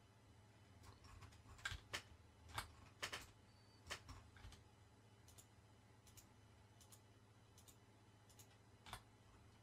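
Faint, scattered clicks of a computer mouse and keyboard, bunched together in the first half with one more near the end, over a low steady hum.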